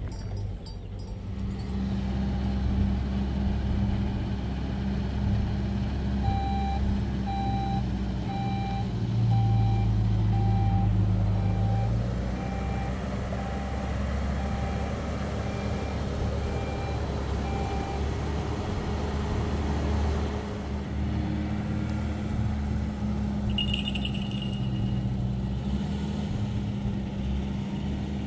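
Pickup truck engine running steadily. A reversing alarm beeps about once a second, starting about six seconds in and lasting some twelve seconds.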